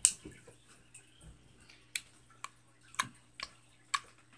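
Jelly-like slime squeezed and pressed between the fingers, making a series of sharp clicking pops: one at the start, then about every half second from two seconds in.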